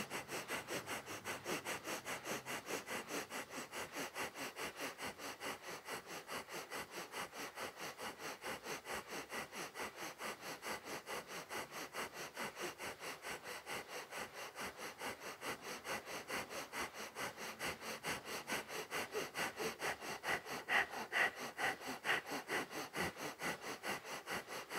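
Breath of fire: rapid, rhythmic breathing through the nose, short inhales and exhales of equal length in a steady train of several strokes a second, a little stronger near the end.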